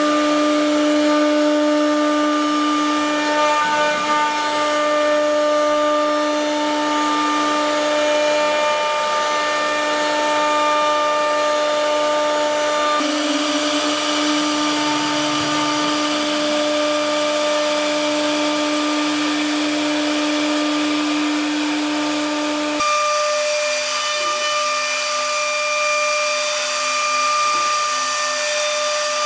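HTM1325 CNC router spindle motor running at speed, a steady high whine. Its pitch and tone shift abruptly twice, about halfway through and again about three-quarters of the way in.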